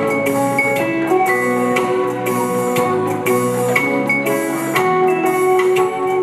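Live band music for dancing: a steady drumbeat under a melody of held notes, with a plucked krar lyre, keyboard and a wind instrument.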